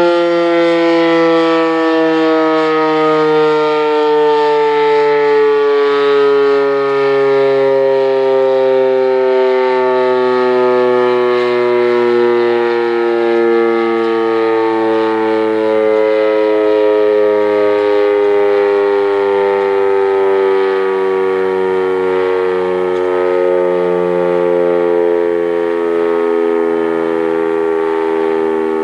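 Federal Signal Model 7A outdoor warning siren sounding a steady tone during a monthly test. The pitch slowly drifts lower throughout.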